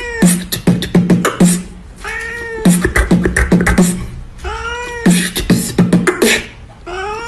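A cat's long meow, rising then falling, repeats about every two and a half seconds over a beatboxing-style rhythm. Between the meows comes a quick run of sharp percussive beats.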